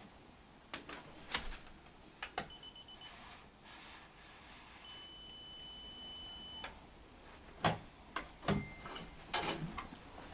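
Zircon electronic stud finder beeping as it is passed over the wall: a quick run of short high beeps, then one steady beep of about two seconds, the tone that marks a stud under the sensor. Scattered light taps and knocks around it.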